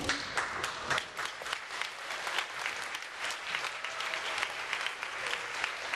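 An audience of schoolchildren clapping: dense, steady applause of many hands.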